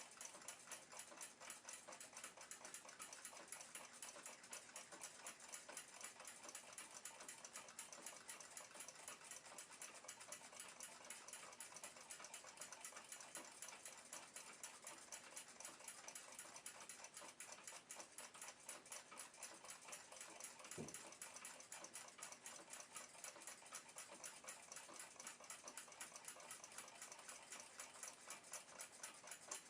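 Faint, rapid, steady ticking of a clock over near silence, with one soft low thump about 21 seconds in.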